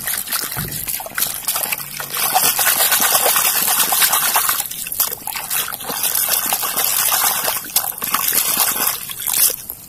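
Water splashing and sloshing irregularly as a small plastic toy is swished back and forth by hand through shallow muddy water to wash it.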